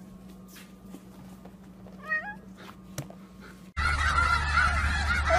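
A cat gives one short meow rising in pitch about two seconds in, over quiet room tone with a faint hum. Near the end a flock of snow geese starts honking over wind noise on the microphone.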